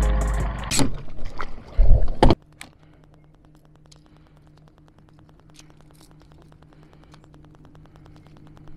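Intro music ends abruptly a little over two seconds in. A boat motor then runs with a faint, steady hum.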